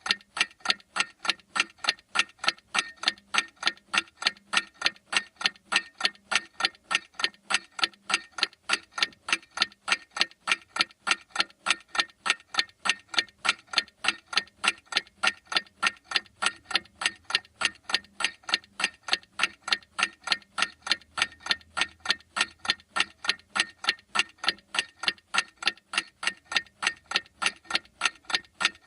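A clock ticking in a steady, even rhythm of sharp ticks.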